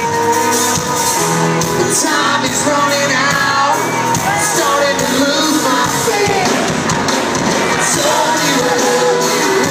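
Live country band playing with singing over it, audience members shouting and whooping along.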